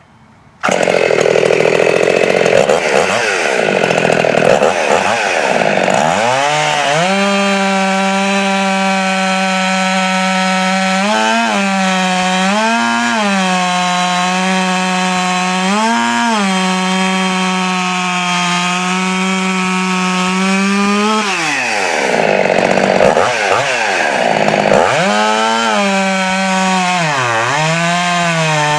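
Jonsered 2171 71cc two-stroke chainsaw, fully ported and not yet broken in, running at high revs. It comes in abruptly about half a second in, with its pitch dipping and recovering over the first few seconds as if under load in a cut. It then holds a steady high pitch with three brief surges, and dips under load again from about two-thirds of the way through.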